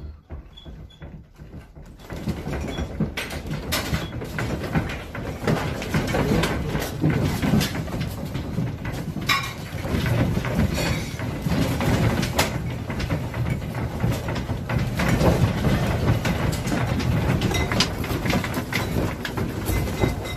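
A building shaking in a strong earthquake: about two seconds in, a deep continuous rumble sets in, full of rapid rattling and knocking from the room and the things in it, and keeps on without let-up.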